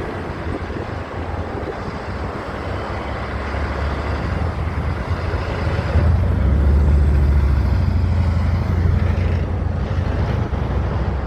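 Heavy truck driving past, its engine and road rumble building and loudest about halfway through before easing slightly near the end.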